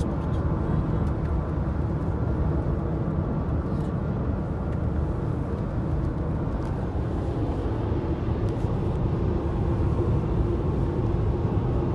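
Toyota RAV4 EV driving: steady road and tyre rumble with a faint steady whine above it.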